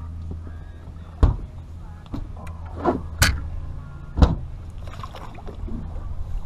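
Several sharp knocks and thumps on a fishing boat's deck and side as a large blue catfish is handled and lowered over the side, the loudest about three seconds in, over a steady low rumble.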